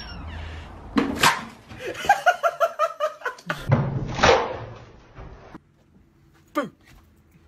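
People's voices: loud shouts and yelps, with a run of rapid laughter in between and one short falling cry near the end.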